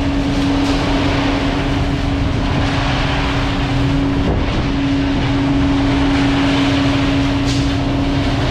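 Heavy diesel engine running at a steady speed: a constant drone that wavers briefly about four seconds in.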